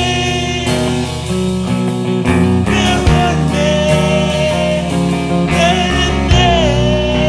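Rock band music: guitars and drums with a long held melody line that wavers in pitch over the chords.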